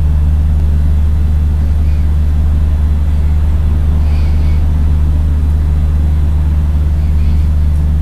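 A loud, steady low hum that stays the same throughout.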